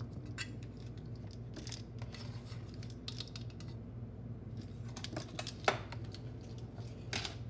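A metal measuring spoon scraping and tapping against a can of baking powder as it is scooped and levelled: a scatter of short dry scrapes and clicks, with one sharper click a little past the middle. A steady low hum runs underneath.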